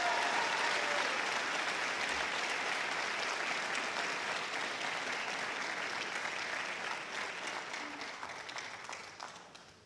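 Audience clapping and applauding, the applause gradually thinning out and dying away near the end.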